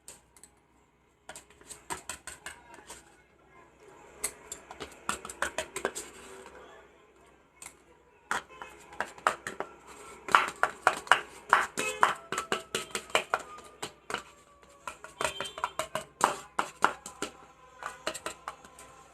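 Metal spoon clicking and scraping against a food container while eating, in quick runs of clicks that stop and start several times.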